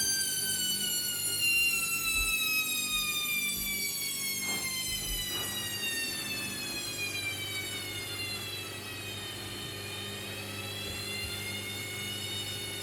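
Hoover H-Wash&Dry 300 washer-dryer's drum motor whining as the spin cycle winds down, its pitch falling steadily, then starting to climb again about ten seconds in as the drum picks up speed. Two faint knocks come midway.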